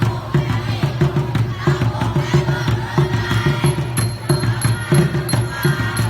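Music with a fast, steady beat: low drum thumps about three a second and a ticking cymbal under a wavering melody.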